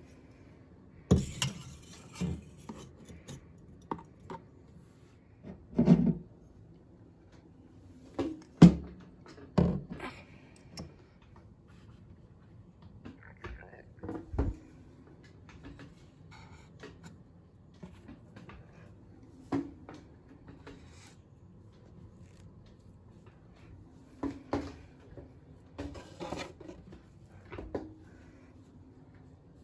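Handling noise of small altar objects, a metal cup and handmade dolls, being picked up, moved and set down on a hard shelf: irregular knocks and taps with rubbing and rustling in between, over a faint steady hum.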